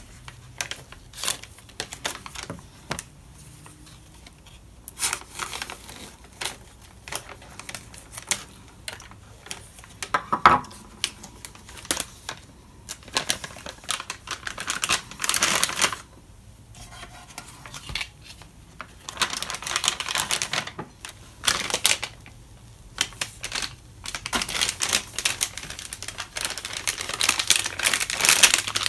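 MRE packaging being handled: plastic and foil pouches and the paper-plastic flameless ration heater bag crinkling and rustling, with many scattered clicks and taps. There is one sharper knock about ten seconds in, and longer rustling near the end as the main-course pouch is slid into the heater bag.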